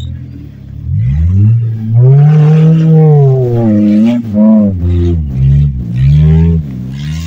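Prepared off-road 4x4's engine revving hard in a series of surges, its pitch climbing and dropping several times as it drives at full throttle.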